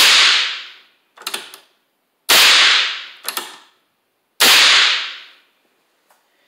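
Percussion caps on a black powder revolver fired by the hammer: three sharp cap pops about two seconds apart, each echoing briefly, with the clicks of the hammer being cocked and the cylinder turning in between. The caps go off under the hammer even after being pressed hard onto the nipples with a pencil eraser.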